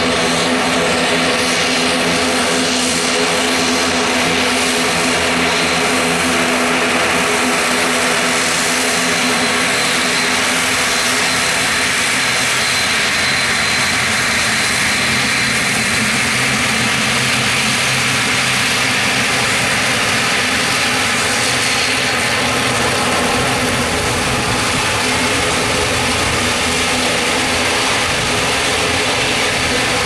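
An ATR 72-600's two Pratt & Whitney PW127M turboprop engines and propellers running steadily while it taxis, a continuous drone with a stack of steady propeller tones under it.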